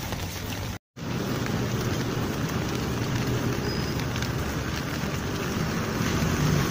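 Steady rain and wet-road noise, broken by a brief dropout about a second in.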